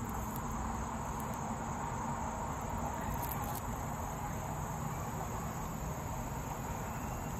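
Crickets chirring in a steady, unbroken high-pitched drone.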